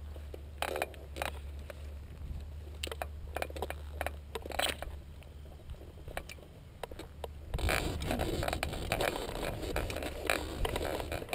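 Scattered short scrapes and rustles of paramotor harness gear over a steady low rumble, with no engine running. A little past halfway the sound switches suddenly to a louder, denser rustling and scraping.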